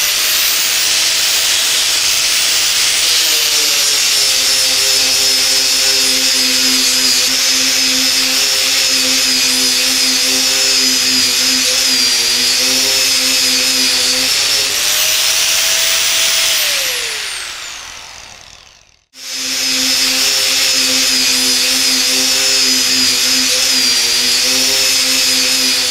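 Bosch GWS 800 4-inch angle grinder (800 W motor) with a rubber backing pad and fibre sanding disc, spinning up to full speed and then dropping in pitch as it is pressed into a rosewood block to sand it. About 15 seconds in it speeds back up off the wood, then winds down after switch-off. After a brief break an angle grinder runs steadily under load, grinding concrete.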